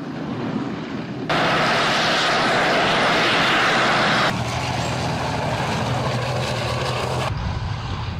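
Engine of a tracked military engineering vehicle running as it drives over dirt. The sound jumps abruptly to a louder, hissier level about a second in, then drops back in two steps, around four seconds and again around seven.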